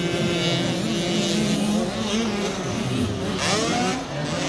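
Several 50cc motocross bike engines revving on the track. Their pitch rises and falls as the riders work the throttle.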